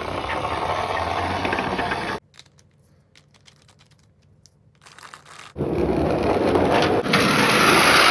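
Tomica die-cast toy minicars rolling down a slope: a rolling rattle for about two seconds, a few light clicks, then a second run starting about five and a half seconds in.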